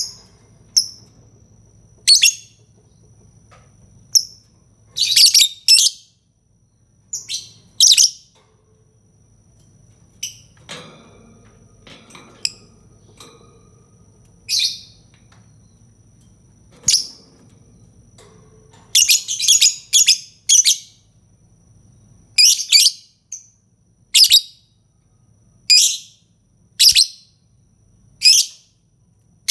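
Lovebird calling: sharp, high-pitched chirps and shrieks, some single and some in quick runs of two to four, every second or two.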